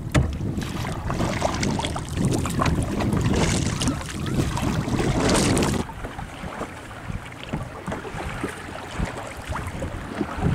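Water lapping and splashing against a canoe with wind buffeting the microphone. The sound drops suddenly about six seconds in to quieter lapping with small ticks and drips.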